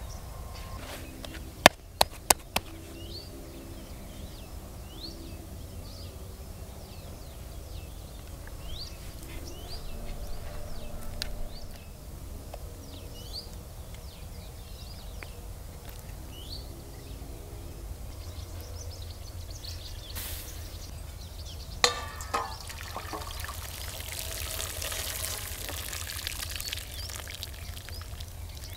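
Small birds chirping on and off, with three sharp clicks about two seconds in. Near the end, water pours and trickles through a perforated metal colander as green beans are rinsed.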